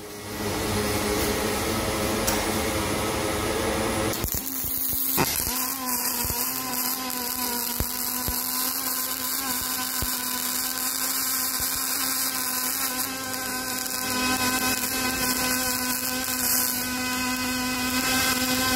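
A small electric power tool running steadily with a high whine, the sound changing briefly about four seconds in, with a few sharp clicks over it.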